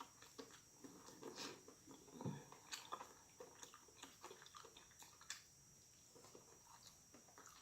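Faint chewing and wet mouth sounds of a person eating, with scattered small clicks.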